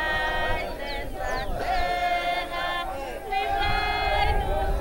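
A group of voices singing a slow religious song outdoors in long, held phrases, with short breaks between them.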